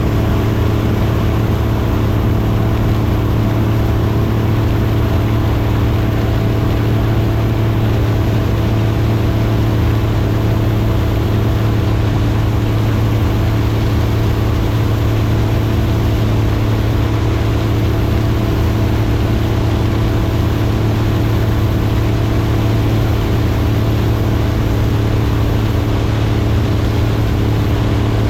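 Combine harvester's engine and machinery running steadily, a constant low hum that does not change.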